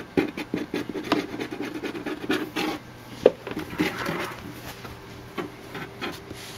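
Cardboard box rubbing and scratching in a run of short scrapes as a cat noses and pushes at it. There is one sharp tap about three seconds in, and the scraping thins out after about four seconds.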